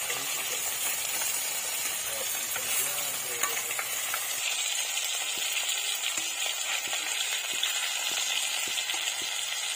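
Pieces of fish frying in oil in a wok, a steady sizzle, with a spatula turning them. From about halfway, short clicks come several times a second over the sizzle.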